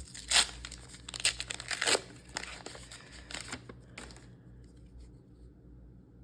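Foil booster pack being torn open and crinkled, a run of sharp rips and crackles lasting about four seconds, loudest in the first two.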